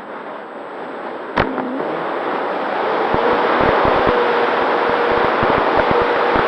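Electric RC P-51D Mustang model in flight, heard through a camera mounted on the plane: steady wind rush over the microphone with gusty buffeting, and the motor and propeller humming at a steady pitch. The sound grows louder about three seconds in, as the throttle or airspeed rises. A single sharp click comes about a second and a half in.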